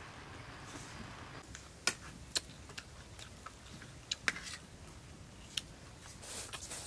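A handful of sharp, separate clicks of a metal spoon knocking against a stainless steel serving plate.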